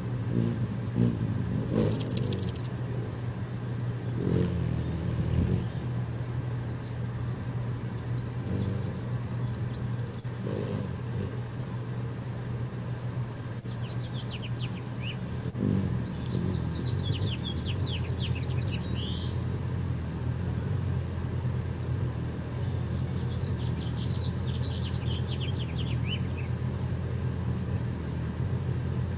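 Steady low rumble of distant traffic, with small birds chirping over it in two quick runs of rapid high notes, one about halfway through and a shorter one near the end.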